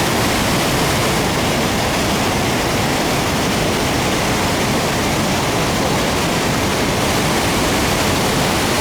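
Rhine Falls waterfall, a large volume of water pouring and crashing in a loud, steady roar.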